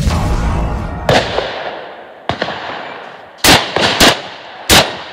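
An intro sound effect fades out, then three shotgun shots ring out in quick succession, about half a second apart, each with a short echo.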